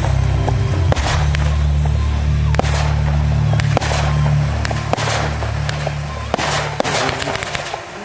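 Fireworks shells bursting with sharp bangs roughly every second, then several in quick succession near the end, over loud bass-heavy music that fades out near the end.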